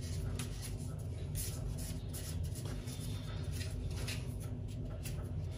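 Fingers rubbing and picking at the plastic casing of a Blink video doorbell in short, quick scratchy strokes, working off glue residue left by its protective wrapper.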